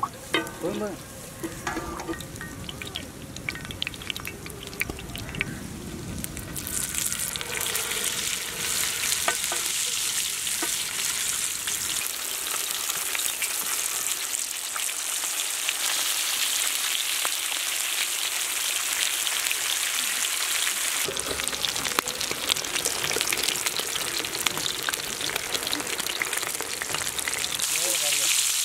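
Whole red pomfret coated in masala sizzling in gingelly oil in a wide pan. The opening seconds are quieter; about six or seven seconds in, a loud, steady sizzle starts as the fish goes into the hot oil, and it continues with scattered crackles and a metal spatula scraping against the pan.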